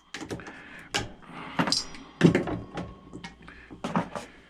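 Irregular clicks, knocks and clinks of electrical plugs being broken apart by hand for scrap brass and copper, about five sharper knocks among smaller ticks. There is a brief metallic ring about a second and a half in.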